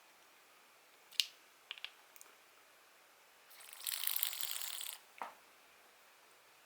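Daiwa Regal spinning reel: a few light clicks, then about a second and a half of fast ratcheting clicks as its mechanism is worked, ending in a single knock.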